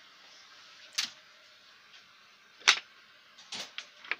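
Sharp plastic clacks and knocks from the fold-down table on a train seat back and its sliding PUSH latch being worked by hand: about five irregular clicks, the loudest a little past the middle.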